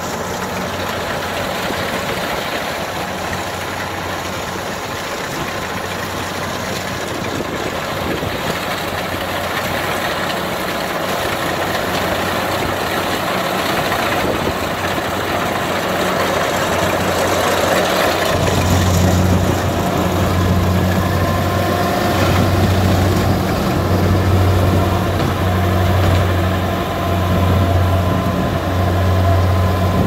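Kubota DC60 combine harvester running as it cuts lodged, flattened rice, its diesel engine and threshing machinery growing louder as it comes closer. From about two-thirds of the way in, the engine's low hum is strong and swells and fades in a slow, regular pulse.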